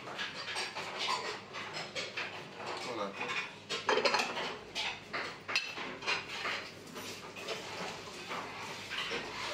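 Metal ladle scraping and clinking against a large kazan and ceramic plates as plov is served, in irregular knocks and scrapes, loudest about four seconds in.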